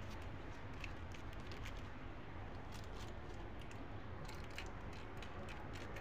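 Quiet room tone with a steady low hum, and scattered faint small clicks and ticks, some in quick little clusters.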